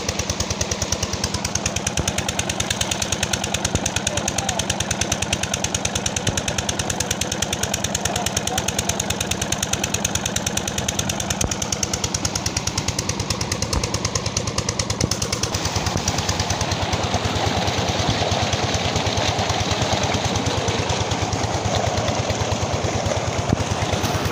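Ghazi 20 HP single-cylinder diesel engine running steadily under load with a rapid, even knocking beat as it drives an irrigation pump. From about halfway in, the rush of water gushing from the pump's delivery pipe joins it.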